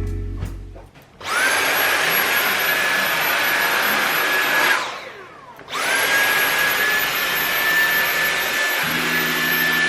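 A high-speed electric motor in a household appliance runs in two bursts. Each burst spins up quickly to a steady whine over a loud rush, and the first winds down with a falling pitch just before halfway.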